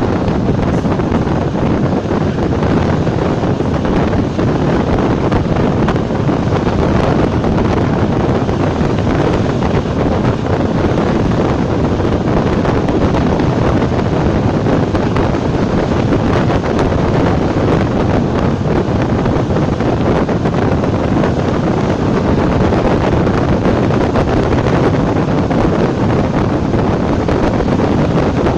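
Steady running noise of a class 460 electric multiple unit ("panťák") travelling at speed, an even rumble with wind buffeting the microphone.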